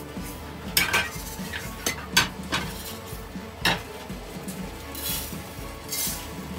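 Metal frying pans knocking and clattering as roasted coriander seeds are tipped out of them, with several sharp knocks in the first four seconds. Near the end, dry coriander seeds pour into a pan with a hissing rush.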